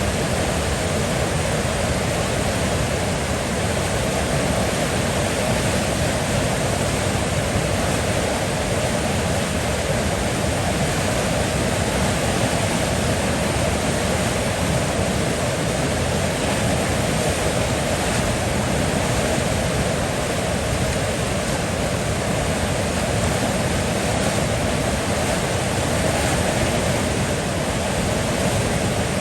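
River water flowing steadily, a continuous even rush with no breaks or changes.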